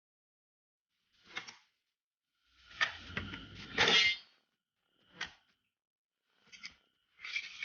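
Plastic toy gun parts being handled and fitted together: a few short bursts of clicking and clattering, the longest and loudest about three to four seconds in.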